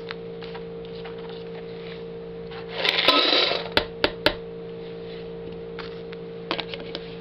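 A few light clicks of a dog's claws on a tile floor as it shifts its feet, with a short rustle about three seconds in, over a steady hum.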